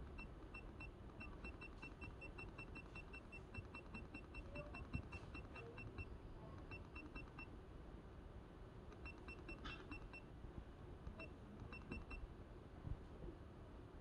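Rapid string of short, identical electronic key beeps from a handheld test instrument as its buttons are pressed over and over, about five a second. The frequency shown on the oscilloscope rises as the signal generator is stepped up. The beeping pauses for about a second and a half midway and stops about two seconds before the end.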